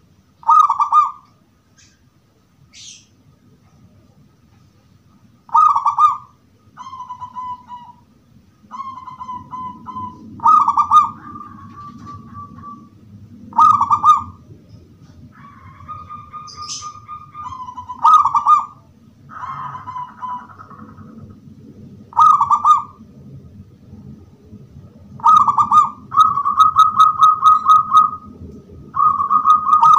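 Zebra dove (perkutut) cooing, clear 'crystal' voice: short phrases of bright coos come every few seconds, several of them running on into a long rolling note, the longest near the end.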